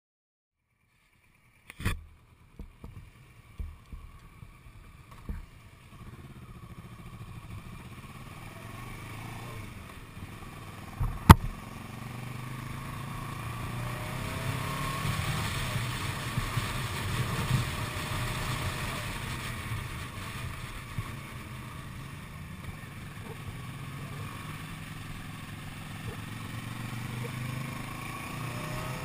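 Kawasaki ER-6n's parallel-twin engine running on the move, its pitch rising and falling with the throttle, heard through a bike-mounted action camera over a steady rush of wind and road noise. A few knocks come in the first seconds after a brief silence, and one sharp click about eleven seconds in.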